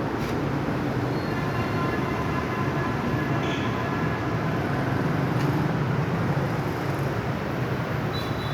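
Wood-sawing machine running with a steady low mechanical rumble and a few faint high-pitched tones over it.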